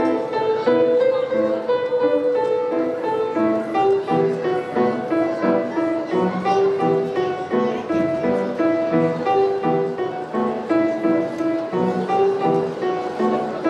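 Grand piano played solo: a brisk, continuous stream of notes and chords.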